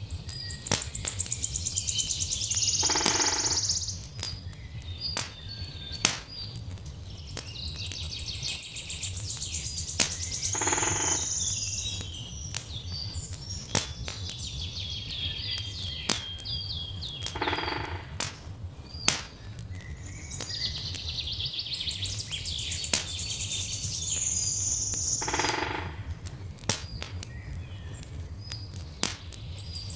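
Songbirds singing in a repeating phrase that comes back about every seven or eight seconds, over scattered sharp crackles of a wood fire and a steady low rumble.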